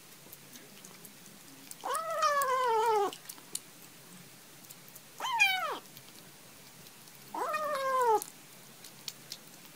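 Bengal kitten giving three meows while eating wet food, each falling in pitch. The first and last are over a second long and the middle one is short, with faint clicks of eating between them.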